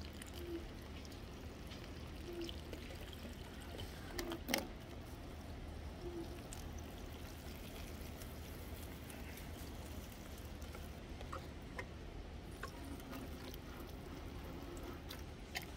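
Water showering steadily from a plastic watering can's rose head onto the soil of potted plants, with one sharp knock about four and a half seconds in.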